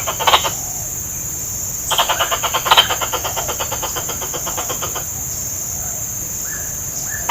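Plantain squirrel (tupai kelapa) chattering: a fast train of sharp chips, a short burst at the start and a longer run of about three seconds from about two seconds in, loudest where it begins. A steady high insect drone runs underneath.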